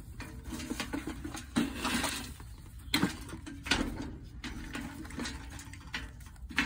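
Hungry chickens pecking and clucking, with a handful of sharp taps spread through.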